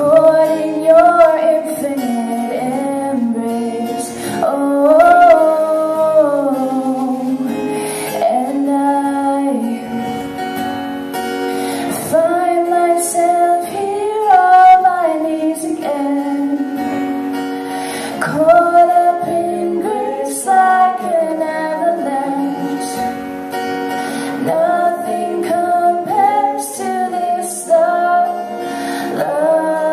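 Live worship song: a woman singing a melody over a strummed acoustic guitar.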